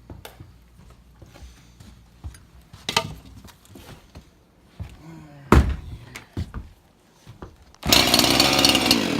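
Husqvarna two-stroke chainsaw being cold-started on full choke: a few pulls on the starter cord, then the engine fires about eight seconds in, runs for about a second and a half, and dies. This fire-and-die on full choke is a habit that the owner says these Husqvarnas have.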